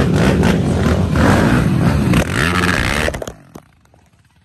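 Ford Raptor R's supercharged V8 running loud and revving, its pitch rising and falling. It cuts off suddenly about three seconds in, leaving only a faint, low pulsing.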